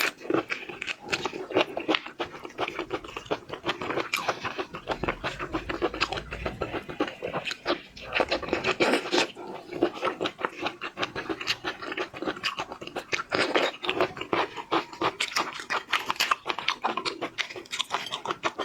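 Close-up seafood eating sounds: a dense, unbroken run of rapid wet clicks, smacks and crunches from chewing and biting.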